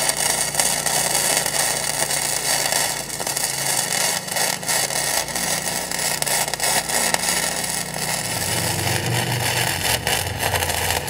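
Flux-core wire-feed welding arc from a Miller Millermatic 211 run without shielding gas: a steady crackling sizzle as a weld is laid on a steel patch plate in a skid-steer track frame.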